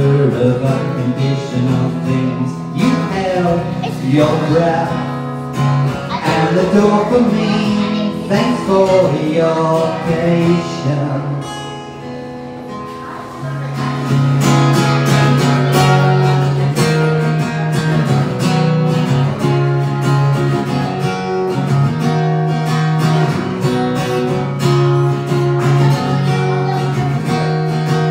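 Acoustic guitar strummed in chords, played live. The playing drops to a quieter passage a little before the middle, then strumming picks up again louder.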